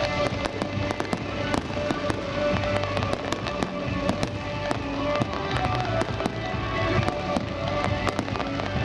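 Fireworks display: a rapid run of sharp bangs and crackling reports throughout, over music playing.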